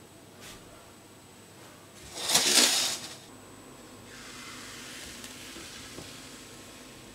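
A short loud hiss about two seconds in. From about four seconds, a softer steady sizzle as pancake batter is poured into a hot nonstick frying pan.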